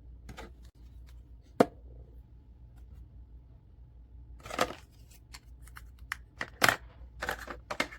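Small craft pieces being handled on a tabletop: a sharp click about one and a half seconds in, a short rustling scrape about halfway, then a quick run of clicks and taps near the end.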